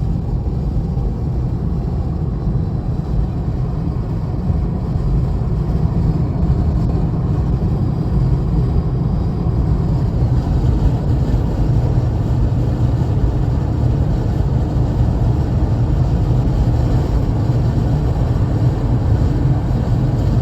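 Steady road and engine rumble inside a moving car's cabin, getting slightly louder about four seconds in.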